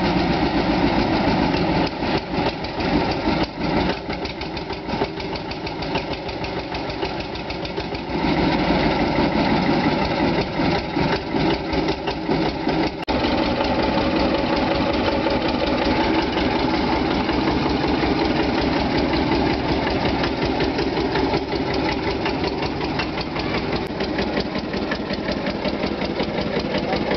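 Deutz tractor's water-cooled two-cylinder diesel engine running with a rapid knocking beat, louder from about eight seconds in.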